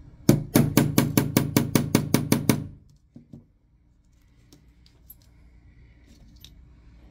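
Hammer striking a pin punch in a rapid run of about a dozen even blows, roughly five a second, driving out the pin of the Glock G19 trigger; two faint taps follow.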